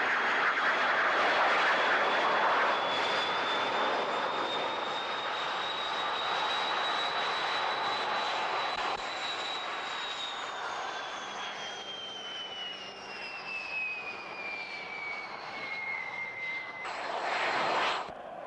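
Lockheed T-33 jet trainer's engine running as it taxis, a steady rush with a high turbine whine that climbs a little and then falls gradually in pitch. Near the end a short, louder rush of noise comes in and cuts off.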